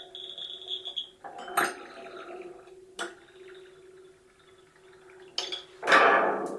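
Sound-making marble run of recycled objects and electronics: marbles click sharply against metal parts a few times while the triggered electronics sound a high steady tone for about the first second and a low hum underneath, ending in a louder noisy clatter near the end.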